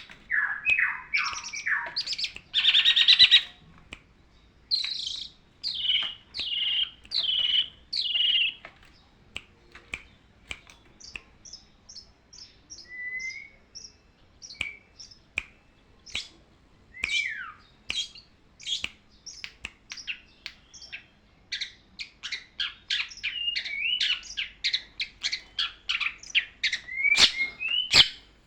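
Long-tailed shrike (pentet) singing a varied song. A harsh rasping phrase comes first, then a run of falling whistled notes, then a long stretch of short sharp ticking notes, ending in a fast run of chirps and whistles.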